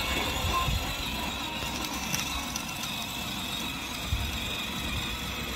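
Battery-powered ride-on toy car driving along asphalt: a steady high whine from its electric drive motors over the low rumble of its plastic wheels.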